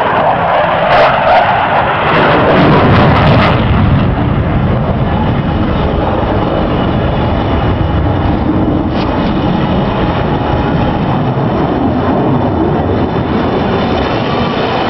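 Loud jet noise from an F/A-18's twin jet engines as it flies past, loudest over the first four seconds with a few sharp crackles, then a steady roar as it moves away.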